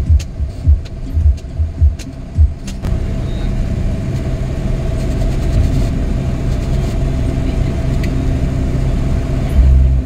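Road vehicle driving, heard from on board: for the first few seconds irregular low thumps with faint clicks, then from about three seconds in a steady engine and road rumble with a constant hum.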